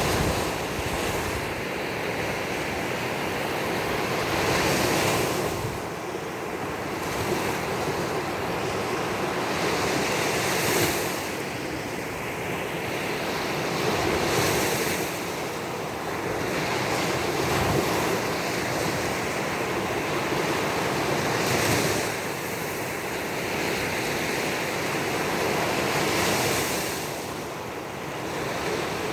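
Baltic Sea surf: waves breaking and washing on the shore in a continuous rush that swells every few seconds, with some wind on the microphone.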